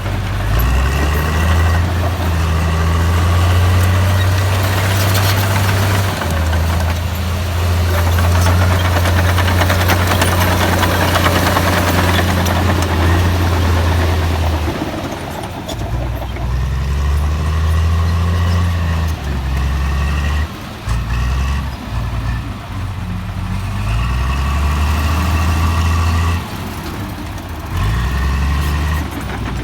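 Heavy diesel engine of earth-moving machinery working under changing load. Its low note shifts in pitch, and it drops off and picks up several times in the second half.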